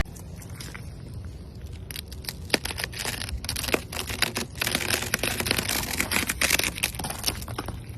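Ice cracking: a run of sharp cracks and crackling snaps, sparse at first and then coming thicker and louder from about two seconds in.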